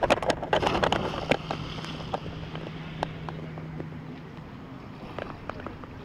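A person diving head-first into the sea: a splash of water in the first second and a half that then dies away. Small sharp slaps of water against a stand-up paddleboard follow.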